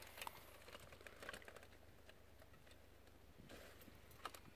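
Near silence with a few faint, scattered ticks.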